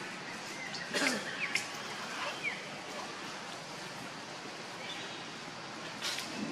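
Steady rushing hiss with a few sharp clicks, about a second in and again near the end, and two short falling chirps.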